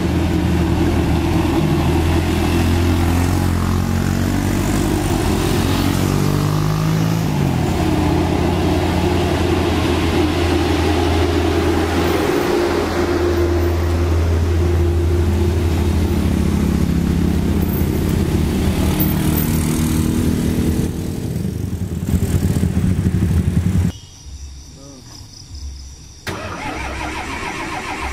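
Fuso self-loader truck's diesel engine labouring uphill under the weight of an excavator, its note rising and falling in pitch as it revs. Near the end the sound cuts off abruptly and, after a moment, a different, quieter engine comes in.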